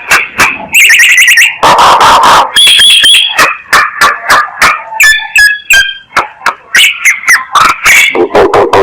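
Myna calling: a loud, fast jumble of sharp clicks, harsh squawks and short whistled notes, a lure call for drawing in other mynas. A long harsh squawk comes about two seconds in, and a few brief whistles come around the middle.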